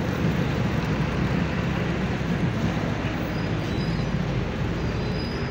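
Steady rumble of a moving vehicle's engine and road noise, heard from on board.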